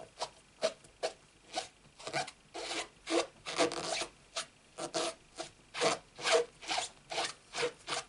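A cloth scrubbing back and forth over a red rubber stamp mounted on a clear acrylic block, wiping the ink off it, in short strokes about two or three a second.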